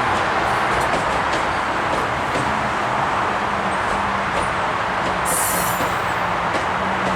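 GO Transit commuter train running through the station: a steady rolling rumble of wheels and cars, with a short high hiss about five seconds in.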